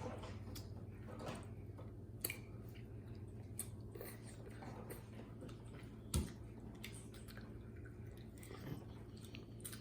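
Quiet chewing and small clicking eating noises as people eat spaghetti, over a faint steady hum, with one soft thump about six seconds in.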